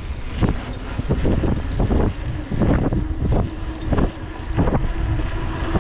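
A dog running on a leash beside a mountain bike gives a string of short, excited barks, about one every half second, over the low rumble of the bike's tyres and wind.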